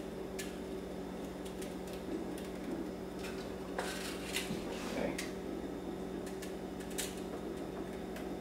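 Faint, scattered taps and scrapes of a spoon against a mixing bowl as cupcake batter is spooned into paper liners in a muffin pan, over a steady low hum.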